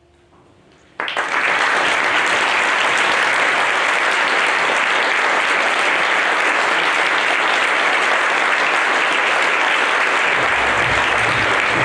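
Theatre audience applauding, breaking out suddenly about a second in as the stage goes to blackout at the end of the performance, then clapping steadily.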